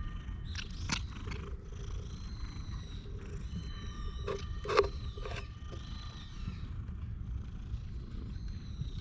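Stray tabby cat purring close to the microphone, a steady low rumble. Three short sharp knocks come about four to five seconds in, the middle one loudest.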